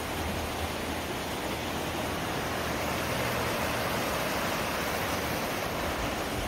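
River water rushing over shallow rapids: a steady, even wash of noise.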